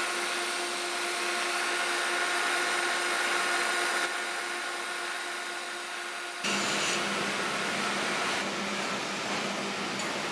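Steady hiss and buzz of a TIG welding arc laying a root pass on an SA 335 (P11) steel pipe, with a faint steady whine in it. About two-thirds of the way through, the sound changes abruptly to a lower, steady hum with hiss.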